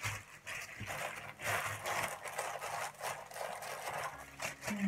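Thin plastic bags filled with minced pork crinkling and rustling in short, irregular bursts as they are handled and twisted shut.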